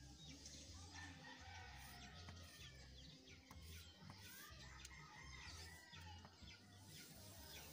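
Near silence: faint bird calls in the background over a low steady hum, with light chalk strokes on the blackboard.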